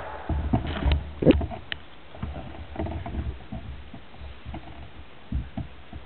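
Table tennis ball being played: a few sharp clicks of the ball on bat and table in the first two seconds, among low thuds from the players moving on the wooden hall floor.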